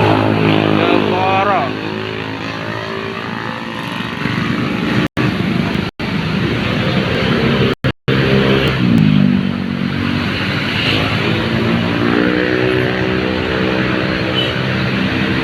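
Bus engine running and revving, its pitch falling and then climbing again, with voices around it. The sound cuts out briefly several times near the middle.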